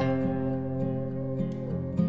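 Background music led by a plucked guitar, notes changing every fraction of a second.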